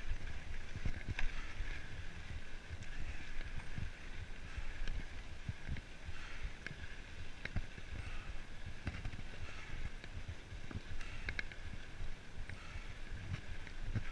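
Mountain bike rolling along a dirt and gravel trail: tyres crunching with irregular low thumps and rattles over bumps, over a steady hiss of rolling and wind noise.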